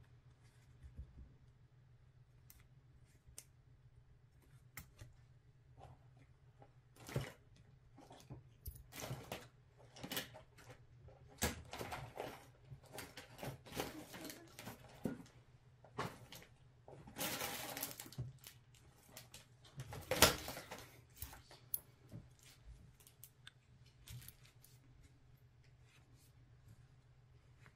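Hands handling a crocheted yarn toy while its pins are pulled out and a little more fiberfill stuffing is pushed in: scattered light clicks and soft rustles, with a longer rustle about 17 seconds in. A faint steady low hum runs underneath.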